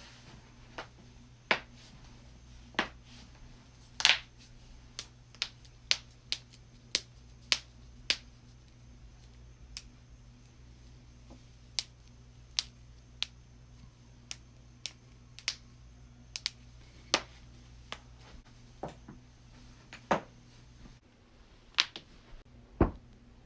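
Body joints cracking: about two dozen sharp, separate pops at irregular spacing, roughly one a second.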